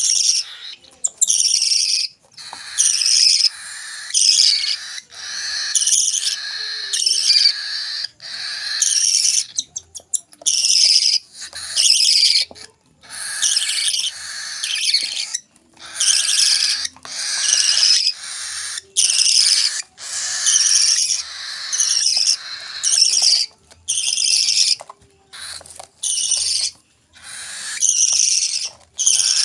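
Hand-fed parrot chicks (cockatiel and parakeet) giving harsh, repeated food-begging calls, roughly one call a second with short gaps, as they are fed.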